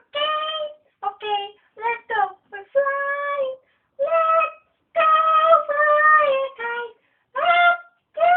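A high-pitched voice singing in short phrases with gaps between them, the notes held briefly and sliding between pitches.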